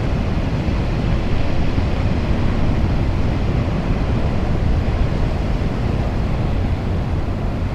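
Steady low rumble of wind buffeting the microphone, mixed with the wash of rough ocean surf.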